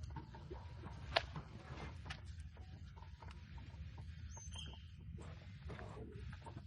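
Footsteps on a trail, with irregular crunches and scuffs over a low rumble, and a short high chirp about four and a half seconds in.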